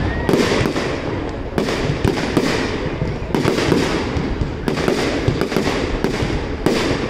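Fireworks display going off in a dense barrage: sharp bangs from bursting shells every second or so over a continuous crackling rumble.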